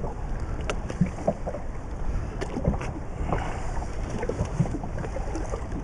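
Wind buffeting the microphone and water washing against a small boat's hull, with scattered small knocks and clicks.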